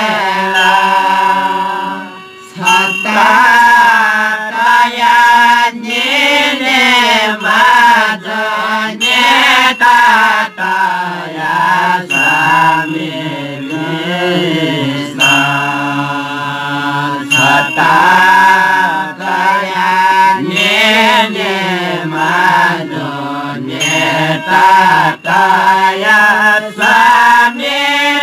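A group of Newari Jyapu singers chanting a devotional folk song together, accompanied by harmonium, tah (small cymbals) and lalakhi (barrel drum).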